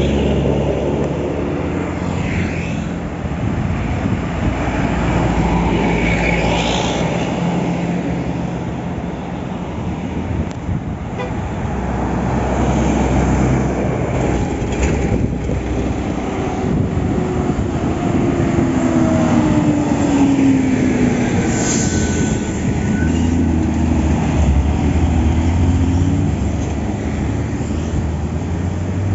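Large diesel coach buses and road traffic passing close by. The engines run with a steady low hum that swells and falls as vehicles go past, with a gliding pitch change in the second half as one passes.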